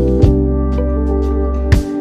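Background music: sustained chords, with a sharp accent about a quarter of a second in and another near the end.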